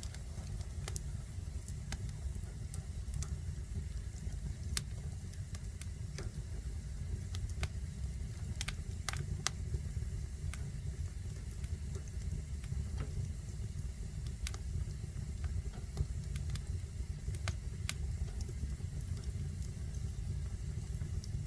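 Wood fire burning in a fireplace: a steady low rumble with irregular sharp crackles and pops every second or two.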